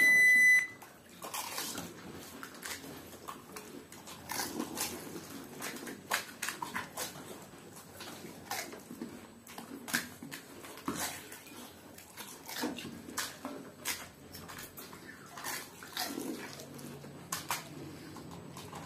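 Pani puri being eaten fast: crisp puris crunching and the spicy water being slurped, in irregular crunches and wet mouth noises. A short high electronic beep sounds at the very start.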